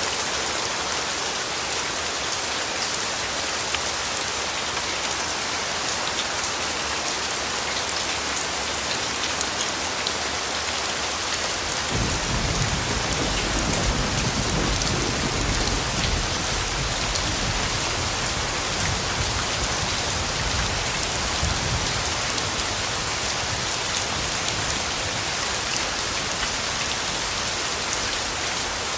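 Steady rain falling, an even hiss. About twelve seconds in, a low rumble of distant thunder rolls in under the rain and fades away over about ten seconds.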